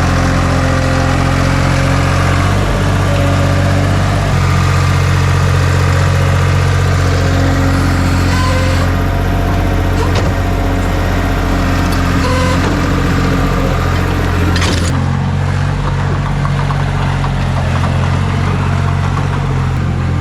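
Skid steer engine running loud and steady, its pitch shifting a couple of times as the machine is worked, with a few clanks in the middle.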